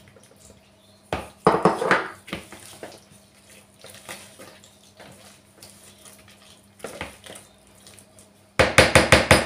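Silicone spatula and bowls knocking and scraping as sour cherries are tipped into cake batter in a stand mixer's bowl and folded in, with scattered short knocks. Near the end comes a quick run of sharp scraping strokes, about eight a second.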